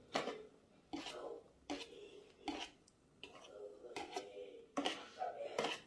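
Metal wire whisk beating flour into a thick egg-and-kefir batter by hand, each stroke scraping and clicking against the mixing bowl, about one stroke every 0.8 s.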